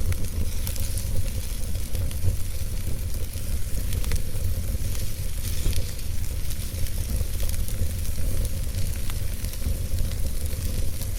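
Wood fire burning in a fireplace: a steady low rumble of flames under frequent small crackles and pops from the burning logs.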